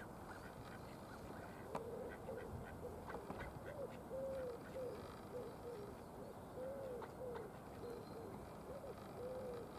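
Faint duck calls, short and repeated about two a second, beginning a couple of seconds in, each rising and falling in pitch.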